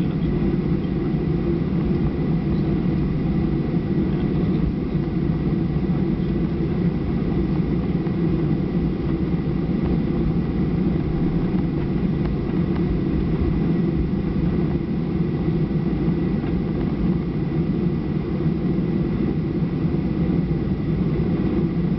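Cabin noise inside a Boeing 737-800 taxiing, its CFM56-7B engines running at low power: a steady low rumble with a faint steady whine above it.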